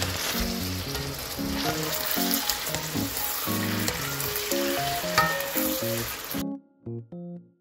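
Nanjawanseu (fried meatballs and vegetables in sauce) sizzling in a wok while a wooden spatula stirs and tosses them. The sizzling stops suddenly about a second before the end, leaving soft piano music that plays underneath throughout.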